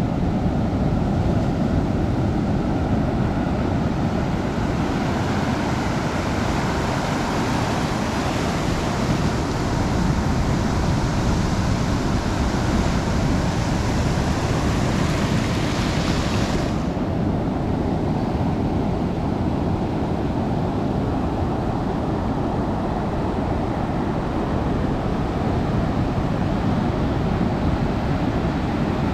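Sea surf and wind on the microphone: a steady, loud rush of breaking water and buffeting. About 17 s in, the upper hiss drops away abruptly and a low rumble carries on.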